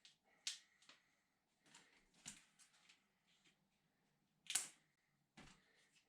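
Faint, scattered clicks and rustles of hands working on a wiring harness and its plastic flex tube, about six short sounds with the sharpest one about four and a half seconds in.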